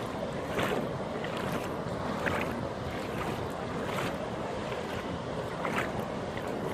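Sea waves washing and breaking in a steady rush of water, with brief splashes every second or two.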